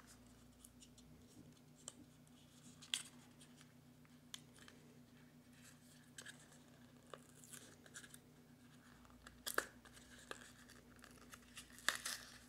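Faint handling sounds of small plastic parts and their packaging: scattered light clicks and crinkles, with a few louder rustles about three seconds in, around nine and a half seconds and near the end.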